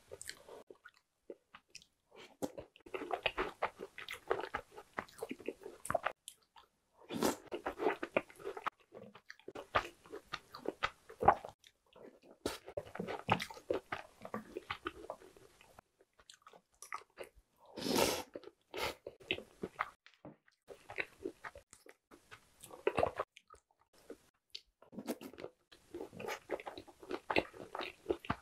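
Close-miked chewing of chocolate cookies and snack cakes soaked in milk, coming in bouts of quick, wet mouth sounds with short pauses between mouthfuls. There is one louder short noise about two-thirds of the way through.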